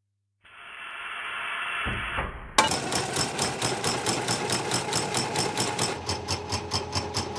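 A rushing sound swells for about two seconds. Then a piston shock-test rig's piston hammers down on a G-Shock watch in a fast, even run of sharp metallic strikes, about five a second, quickening near the end.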